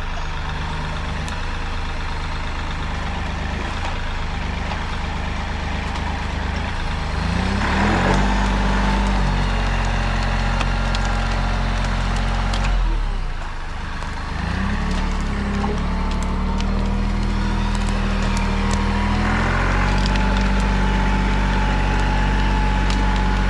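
Compact tractor engine working under load as the grapple pulls a log, revving up about a third of the way in, dipping briefly past the middle and coming back up, with wood and branches cracking.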